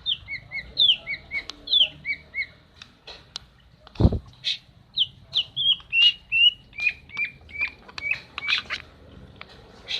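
Female cucak ijo (green leafbird) calling: a quick series of short chirps, high down-sliding notes alternating with lower ones. There is a single low thump about four seconds in.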